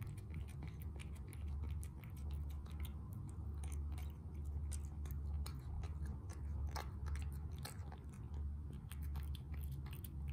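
Munchkin cat chewing and crunching dry cat food mixed with wet food from its bowl: a quick, irregular run of small crisp crunches and clicks. Underneath is a low rumble that swells and fades about once a second.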